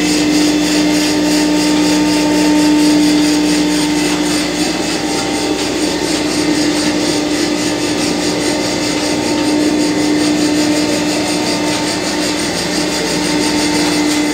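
Belt-driven, hopper-fed machine and its electric motor running steadily: a constant hum with a whirring noise over it.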